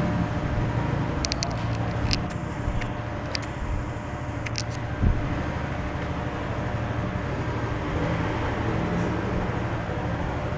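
Corded electric hair clipper buzzing steadily as it cuts a fade up the side of a head. A few light clicks come in the first half, and there is a soft thump about five seconds in.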